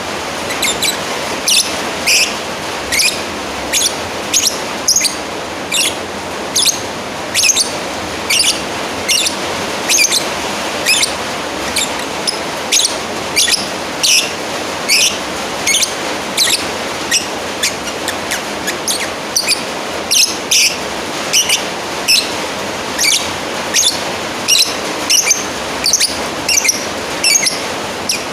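A lovebird giving short, shrill, high-pitched calls, repeated about one to two a second, the loud contact calls of a bird calling out to a rival. A steady hiss lies under the calls.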